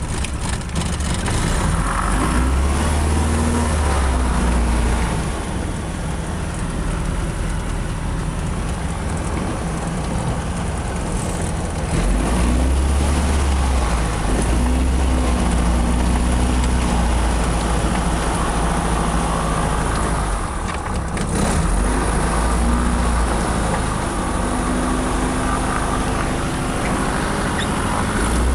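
Fournier RF 5 motorglider's flat-four engine running, heard from inside the cockpit while the aircraft taxis on the ground. Its speed rises and eases off a few times.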